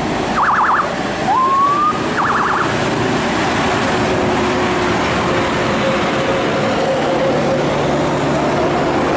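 Heavy road traffic passing close by: a Scania tractor unit with a low-bed trailer goes past with engine and tyre noise, followed by motorcycles and a car. In the first three seconds a short, high warbling tone sounds twice, with a rising glide between.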